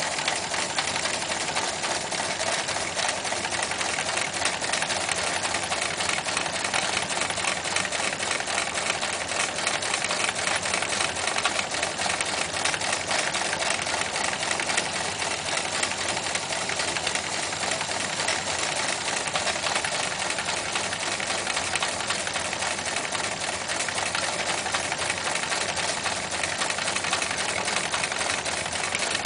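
Gauge 1 live-steam LMS Duchess locomotive with twin cylinders running under steam, a rapid, even run of exhaust beats over a steady hiss.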